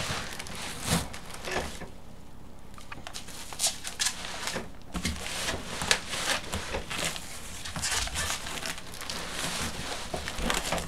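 Cardboard packaging being handled as a 3D printer is worked out of its box: irregular rustling, scraping and light knocks, with loose parts of the printer rattling.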